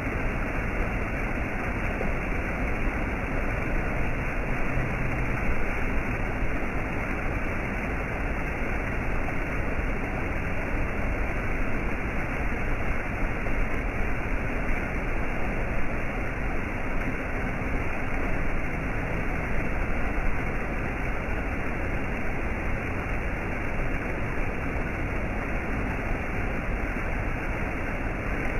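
Steady, unbroken rush of falling water from a waterfall or cascade.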